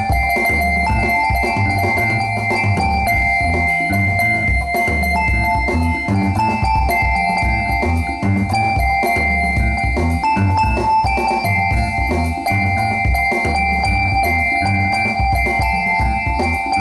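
Music with a steady beat in the bass and drums under held melody notes that step from one pitch to the next.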